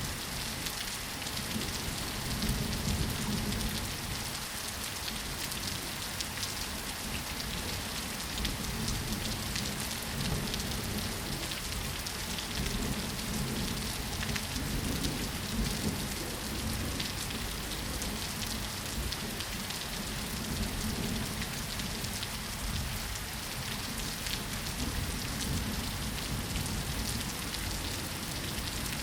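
Steady rain falling on surfaces, an even patter, with a low rumble underneath that swells and fades every few seconds.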